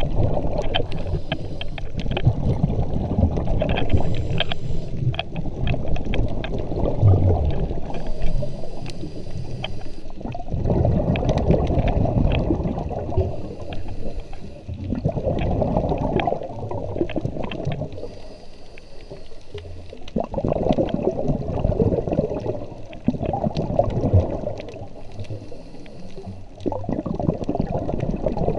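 Scuba regulator exhaust: a diver's exhaled bubbles rushing and gurgling past the camera underwater, in surges a few seconds long that come back every few seconds, with a scatter of faint clicks.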